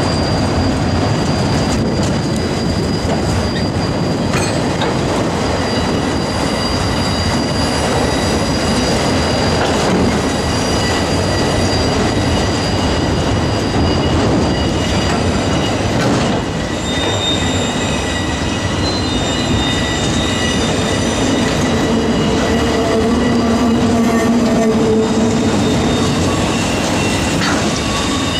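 Freight train of autorack cars rolling steadily past, with the continuous noise of wheels on rail and steady high-pitched wheel squeal.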